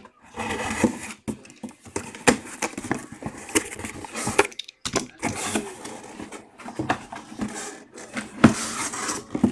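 Cardboard box and packing being opened and handled by hand: irregular rustling and scraping with scattered sharp clicks and knocks.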